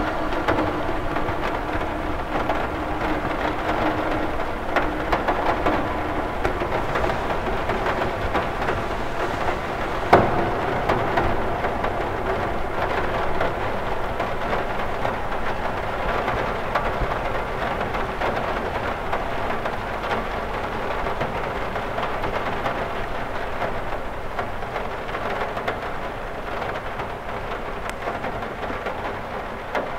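Steady rain pattering on a cathedral window's glass, with one sharper, louder tap about ten seconds in; the rain slowly gets quieter near the end.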